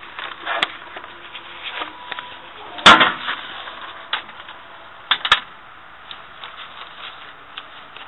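A few sharp knocks and clicks over a low hiss, the loudest one about three seconds in, with a pair of smaller clicks about five seconds in.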